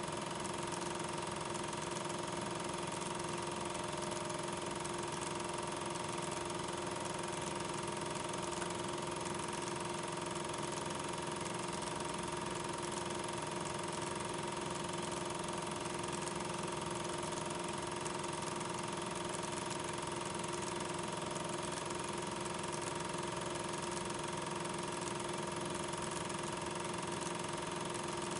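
Regular 8 mm film projector running during the transfer: a steady mechanical whir with a constant hum over hiss, unchanging throughout.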